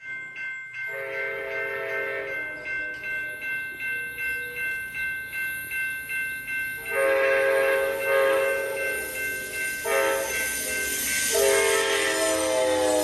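Amtrak P42DC locomotive's air horn sounding in several blasts: a short one about a second in, a long one in the second half, then another running to the end. Under it, a bell rings steadily about twice a second.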